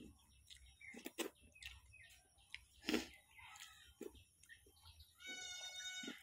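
Close-up eating sounds: wet lip smacks, clicks and chewing as food is eaten by hand, with one sharp smack about three seconds in. Near the end an animal calls once for about a second at a steady pitch.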